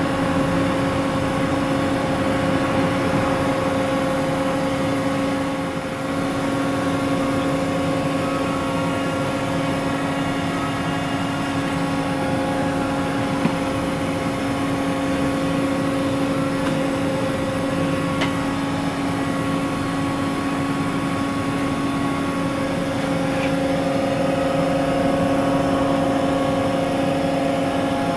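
Makino a51nx horizontal machining center running: the spindle gives a steady hum and whine, made of two strong held tones with fainter higher ones, over an even rushing hiss of coolant spray in the enclosure.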